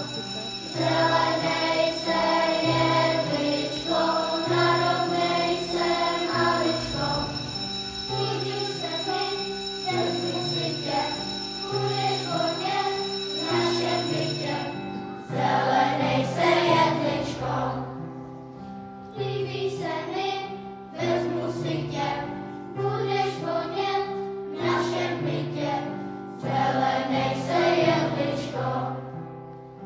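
Children's school choir singing a Christmas song over an instrumental accompaniment with a stepping bass line; sharp percussive strokes join in about halfway through.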